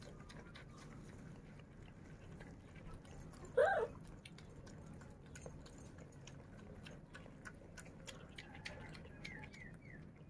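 A piglet chewing noodles from a tray, a steady run of small smacking clicks, with one short squeak about three and a half seconds in.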